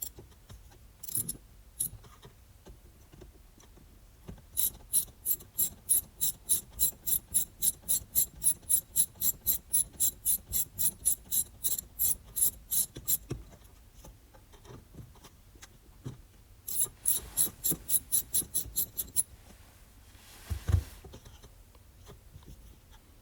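Hand ratchet clicking, about four clicks a second, in a long run and then a shorter one, as console screws are backed out. A single thump comes near the end.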